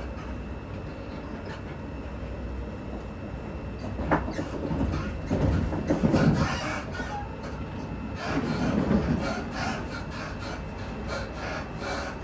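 Electric multiple-unit train running, heard from inside the carriage: a steady low rumble of wheels on track that swells louder twice midway, with short clicks of the wheels over rail joints, more frequent near the end.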